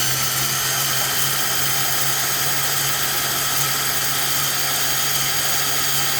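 CYC X1 Pro Gen 3 mid-drive e-bike motor running on an X12 controller at a steady speed with a high whine, without pausing. Near the end it winds down with a falling whine.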